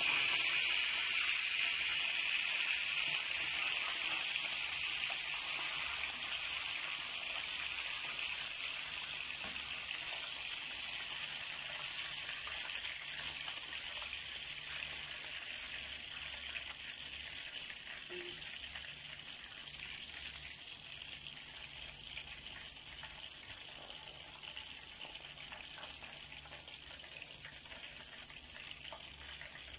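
Tuna pieces frying in hot oil in a pan: a steady sizzle that slowly fades.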